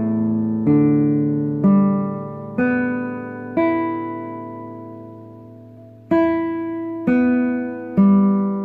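Nylon-string classical guitar, open strings plucked one note at a time by the right-hand thumb and fingers in a beginner's exercise. Each note is left to ring on. There are seven plucks at about one a second, with a longer ringing pause of about two and a half seconds partway through.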